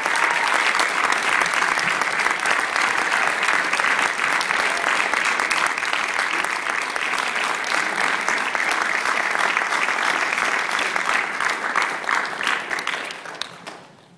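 Audience applauding steadily after a choral performance, the clapping dying away near the end.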